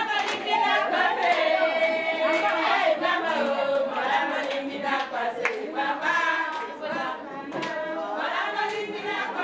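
A group of voices singing together, with handclaps.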